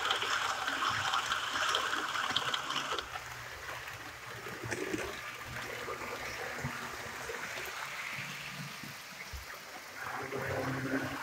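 HO-scale model train rolling past close by on sectional track: a steady rushing of wheels on rail and the train running, which drops away about three seconds in. Quieter running continues, with a low hum near the end.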